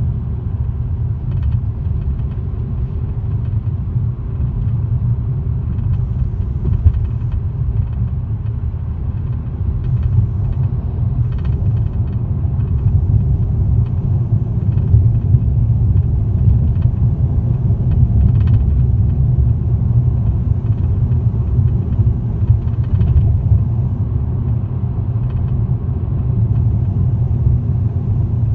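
2018 Toyota Corolla running with a steady low rumble, with faint, irregular rattling clicks now and then.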